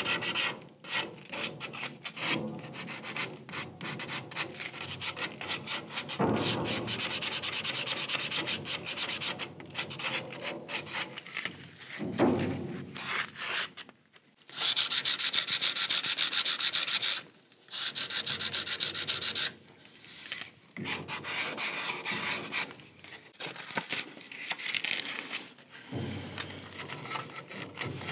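Sandpaper on a hand sanding block rubbing back and forth along a wooden electric guitar neck during finish sanding. Quick short strokes at first, then longer runs of strokes lasting a few seconds each, with brief pauses between them.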